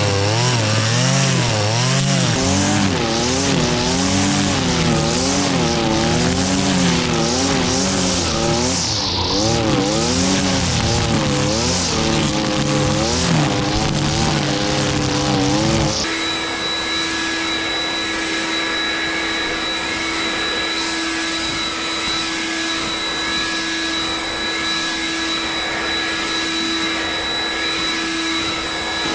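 Stihl brushcutter cutting grass, its engine speed swinging up and down every second or so as the throttle is worked. About halfway through it changes abruptly to a steady high-speed whine at constant pitch.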